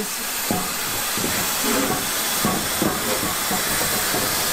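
Southern Railway S15 4-6-0 steam locomotive No. 506 starting to move off: a steady hiss of escaping steam with irregular soft beats underneath.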